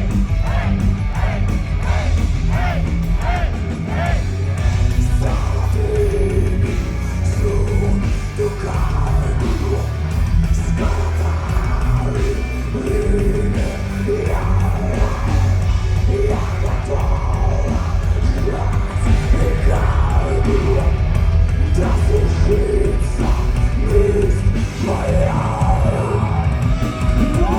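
Heavy metal band playing live, with a heavy low end under the guitars and drums, and vocals at times, most clearly near the start and near the end.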